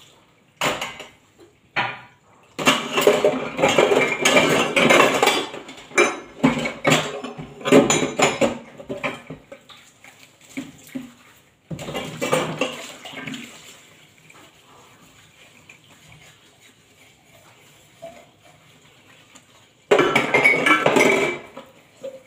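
Dishes being washed by hand in a kitchen sink: cups, bowls and containers clattering and knocking together under a running tap. The clatter comes in bursts, busiest in the first half and again near the end, with a quieter stretch of running water in between.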